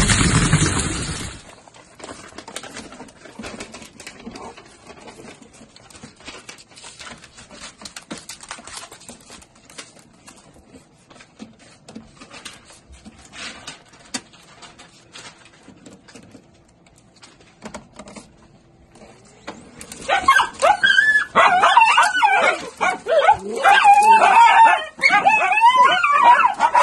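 Several dachshunds whining and yipping excitedly together, a loud chorus of rising and falling cries that starts about twenty seconds in, after a long quieter stretch of faint clicks.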